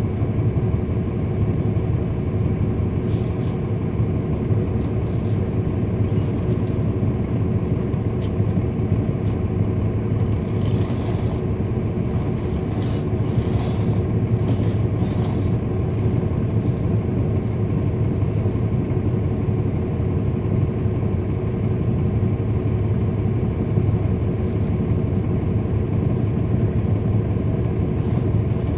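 Cummins ISL9 diesel engine of a 2010 NABI 40-SFW transit bus running steadily, a constant low drone heard from aboard the bus, with a few faint clicks through the middle stretch.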